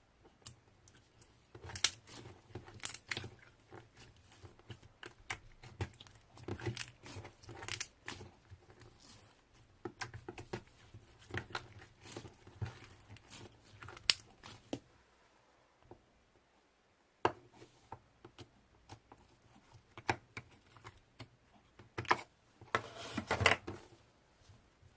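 Hands squishing, pressing and stretching slime: irregular sticky clicks, pops and crackles coming in bunches, with a short pause a little past the middle.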